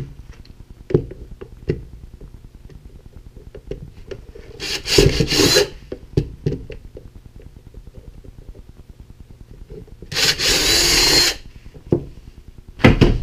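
Cordless drill boring two holes through the black plastic base of a sensor mount, two runs of about a second each, with small clicks and handling noises between them and a short knock near the end.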